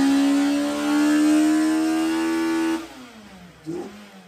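A car engine accelerating hard, its pitch climbing steadily for nearly three seconds. The sound then drops off suddenly and falls away in pitch as the throttle is lifted.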